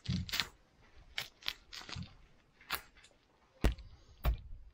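Kingfish carcass being cut up: sharp crunching and cracking as the blade goes through flesh and bone. Near the end come two heavy thumps, the blows of a hatchet chopping the fish on the ground.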